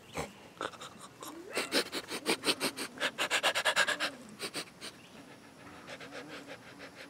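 A man imitating a dog, panting rapidly with his tongue out at about six breaths a second. The panting is loudest in the middle and goes on more quietly near the end.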